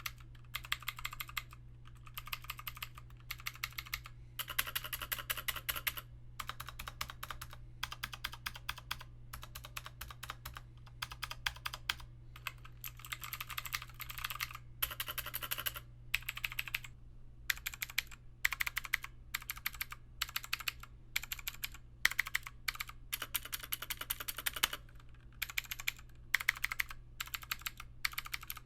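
Typing on a mechanical keyboard fitted with PBT double-shot pudding keycaps: rapid runs of key clacks in bursts of a second or two, with short pauses between them.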